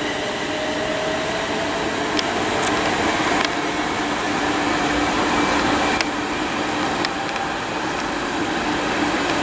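London Midland class 350 Desiro electric multiple unit running on the line beside the platform: a steady electric hum with a low held tone, a faint whine rising slightly in pitch over the first few seconds, and a few faint ticks.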